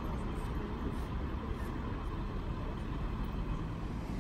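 Steady low rumble of motor vehicles on a city street, with no single event standing out.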